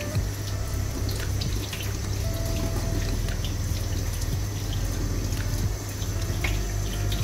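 Kitchen tap running into a stainless steel sink while hands are rubbed and rinsed under it, with small splashes and drips. A low steady hum runs underneath.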